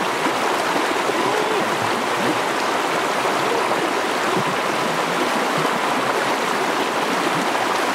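Fast-flowing stream rushing over rocks in a steady, unbroken wash of water.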